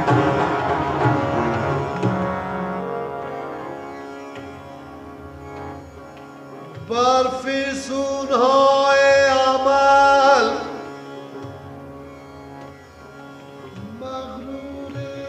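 Instrumental passage of an Afghan classical song: tabla with melody instruments. About seven seconds in, a loud held melodic phrase with wavering pitch comes in and lasts roughly three seconds before the music drops back.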